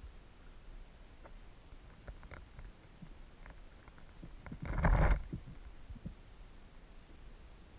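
Underwater sound picked up by a submerged GoPro in its waterproof housing: a steady low water noise with scattered faint clicks and ticks, and one louder noisy burst about half a second long a little past the middle.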